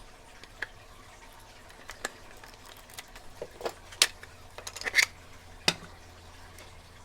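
A series of sharp clicks and knocks, about half a dozen, the loudest about four and five seconds in, from a tubular lock and tubular pick being handled and taken out of a lock holder.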